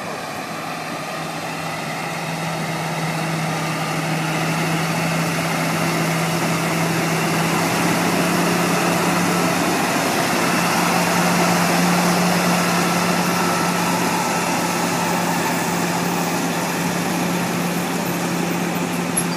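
Caterpillar motor grader's diesel engine running steadily as the machine grades dirt, growing louder as it comes close and easing off a little as it moves away.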